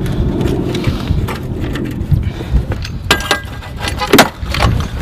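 Metal clanks and clinks of fuel hose couplings and valve fittings being handled, a few sharp knocks about three seconds in and again just after four seconds, over a steady low engine rumble.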